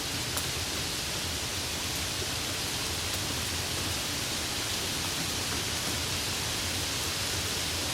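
Light rain falling: a steady, even hiss with an occasional faint tick of a single drop.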